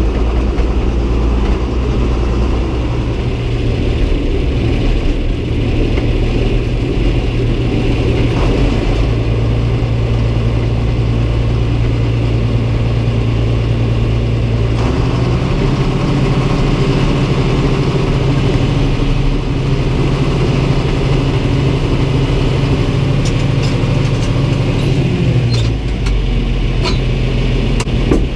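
Farm tractor engine running steadily, its pitch stepping up or down a few times as engine speed or load changes, with a few sharp clicks near the end.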